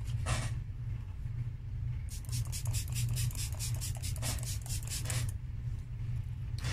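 A makeup brush sweeping quickly back and forth over the face, a run of scratchy strokes lasting about three seconds in the middle, over a steady low hum.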